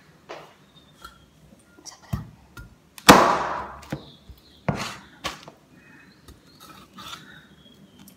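Meat cleaver chopping raw chicken: a few sharp chops, the loudest about three seconds in with a brief ring after it, then two more chops around five seconds and some lighter knocks.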